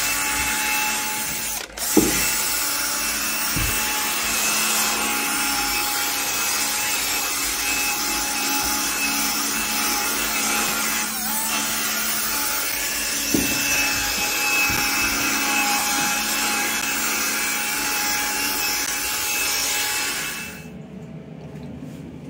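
Cordless drill spinning a rotary brush attachment against stair carpet: a steady whirr of the motor with the bristles scrubbing the pile, agitating heavily stained carpet during cleaning. It breaks off briefly about two seconds in and stops abruptly near the end.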